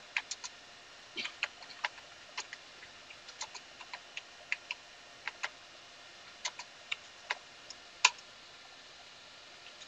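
Computer keyboard keys clicking at an irregular pace as a command is typed, with one louder keystroke about eight seconds in as the Enter key is pressed.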